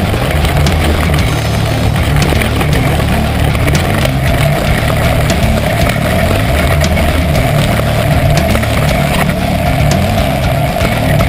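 Camera-recorded ride down a rough, rocky downhill mountain-bike trail: a loud, steady low rumble with rapid clicks and rattles of the bike over the rocks throughout.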